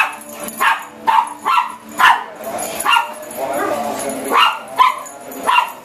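Dogs barking repeatedly in short, sharp barks, about one every half second, as they play at chasing a laser dot. A longer, lower sound breaks the run of barks midway.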